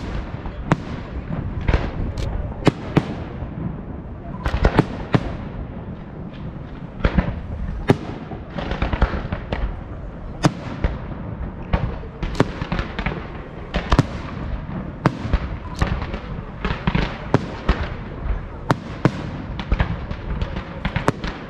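Aerial fireworks display: shells bursting one after another in quick, irregular succession, many sharp bangs over a continuous low rumble.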